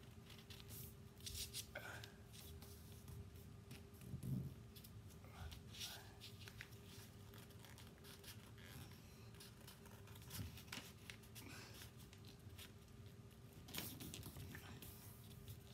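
A sheet of paper being folded and creased into a paper airplane: faint rustles and crinkles in scattered short bursts, with a soft low thump about four seconds in.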